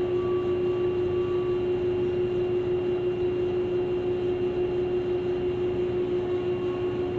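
Overhead crane machinery running in a large industrial shop: a steady, unchanging mechanical hum with one constant low-middle tone and fainter higher whines over an even noise.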